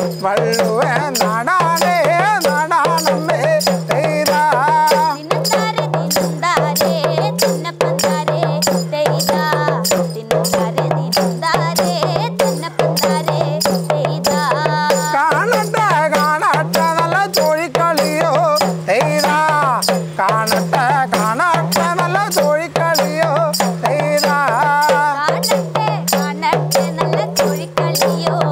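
Kerala folk song for the Kudachozhi dance: singing over a fast, steady drum beat with dense percussion strikes and a low pulsing tone underneath.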